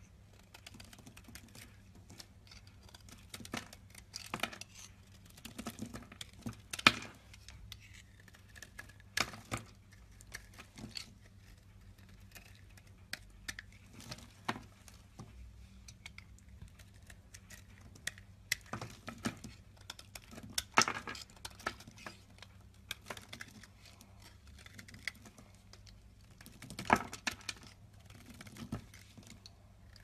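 Snap-off utility knife blade scraping and shaving a bar of soap, making crisp crackling clicks in irregular clusters, with louder bursts of crackle a few times.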